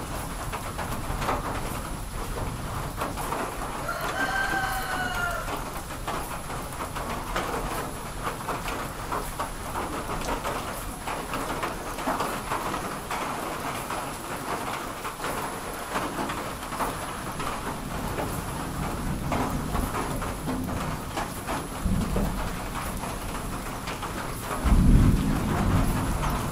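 Steady rain pattering and dripping. A rooster crows once about four seconds in, and low rumbles of thunder swell near the end, the loudest about 25 seconds in.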